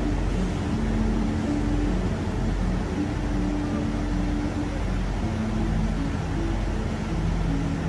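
Background music: held low notes that change pitch every second or so over an even low pulse, with a steady noisy rumble underneath.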